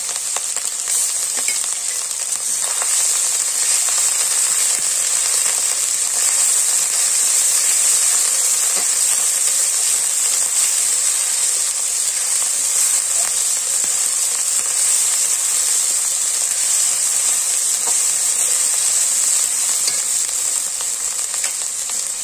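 Garlic and ginger paste frying in hot oil in a metal kadai, a steady sizzle, while a metal spatula stirs and scrapes through it.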